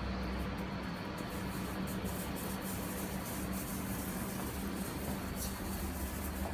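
Steady low hum with an even hiss and no distinct events: background room tone from a running machine.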